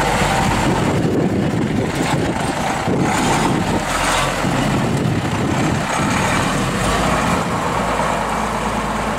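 Mercedes-Benz Unimog diesel engine running steadily at low revs as the truck crawls over rough ground.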